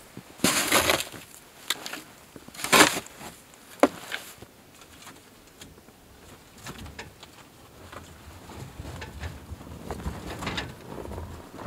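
A plastic snow shovel scraping and scooping packed snow, two loud scrapes in the first three seconds and a sharp knock at about four seconds. After that come fainter low rumbling and clicks as the aluminum utility trailer is handled and tipped up.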